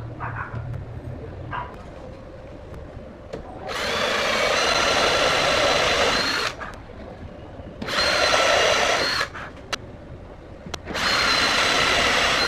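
Electric angle grinder motor switched on in three bursts, about three seconds, then one second, then two. Each burst is a steady whine, with a few sharp clicks in the quieter gaps.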